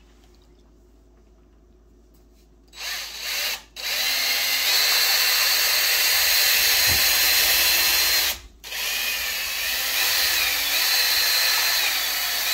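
Electric drill driving a paddle mixer through gelled homemade laundry detergent in a plastic bucket. After a quiet start it gives a short burst about three seconds in, then runs steadily with a high whine for about four seconds, stops briefly, and runs again for about four seconds with its pitch wavering.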